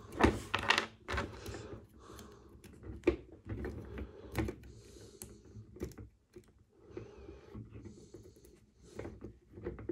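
Irregular small clicks and taps as a Super Robot Chogokin GaoGaiGar figure's swappable hand is worked onto its wrist peg, a tight fit. The sharpest clicks come just after the start and about three seconds in.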